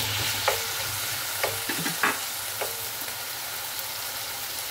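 Diced raw chicken breast sizzling in hot oil in a nonstick pan, with a steady hiss. A wooden spatula stirs the pieces, knocking and scraping against the pan four times in the first three seconds.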